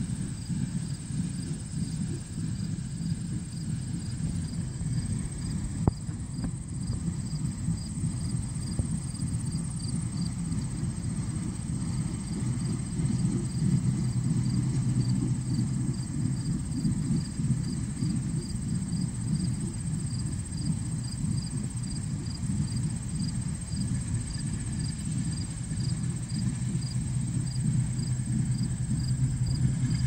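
Tractor engine running steadily at a low rumble, with a faint high chirp repeating evenly about twice a second.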